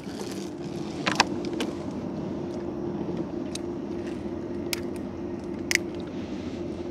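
A small boat engine running steadily at an even pitch, with a few sharp clicks or knocks now and then.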